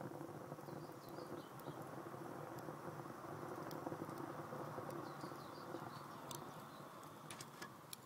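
Wood-fired rocket stove burning with a good draft: a faint, steady low rumble of air being pulled through the burning sticks in the feed tube, with a few sharp crackles from the wood near the end.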